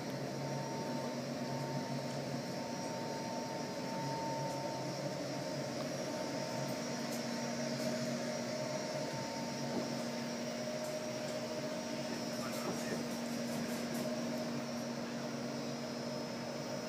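Steady drone of building ventilation plant: air-handling units and fans pushing air through insulated ductwork, with a few steady humming tones over the rushing air.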